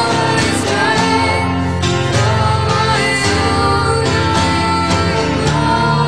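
Background music: a song with singing, guitar and drums.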